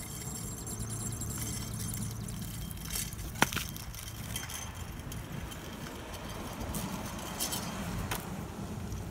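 Hoverboard go-kart rolling over asphalt with a steady low rumble, and one sharp click about three and a half seconds in.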